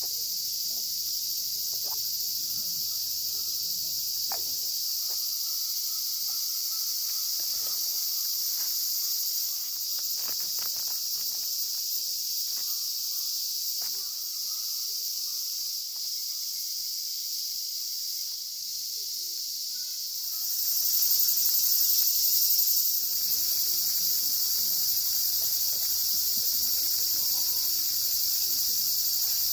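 Summer insects chirping in a continuous high-pitched chorus, with a few faint small clicks. It gets louder about two-thirds of the way through.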